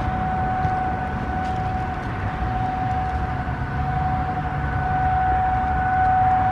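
Federal Signal 508-128 rotating outdoor warning siren sounding the steady alert tone: one held pitch that does not rise or fall, growing a little louder near the end. A low rumble runs underneath.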